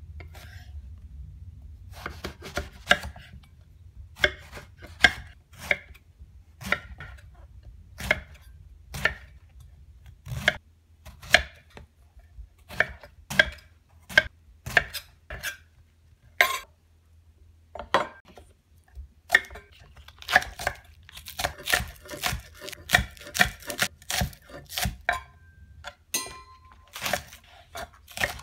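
Chef's knife cutting eggplant on a wooden chopping board, each cut ending in a sharp knock of the blade on the board, about one or two cuts a second. In the last several seconds the cuts come quicker as green onions are chopped.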